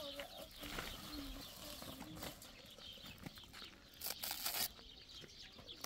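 A filled woven plastic sack being shifted and pressed down by hand, its fabric rustling sharply for about half a second around four seconds in. Faint animal calls sound behind it in the first couple of seconds.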